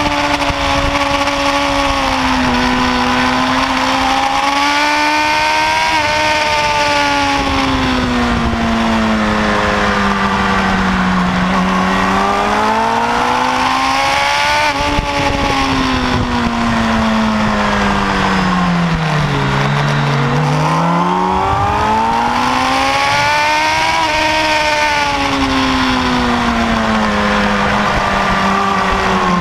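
Kawasaki ZX-10R's inline-four engine heard onboard at track speed, its pitch rising and falling with throttle through the corners, deepest about two-thirds of the way through. Steady wind rush over the fairing runs underneath.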